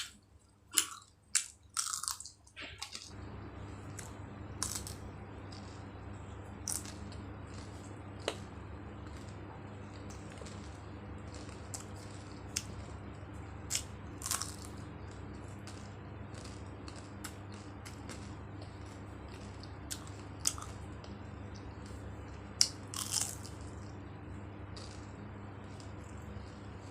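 Crisp fried jalebi being bitten and chewed close to the microphone: scattered sharp crunches, a few in quick clusters, with quieter chewing between. A steady low hum comes in about three seconds in and runs under it.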